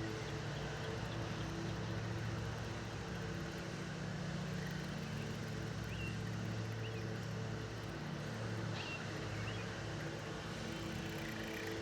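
Steady low motor drone, with a few faint short high chirps about six and nine seconds in.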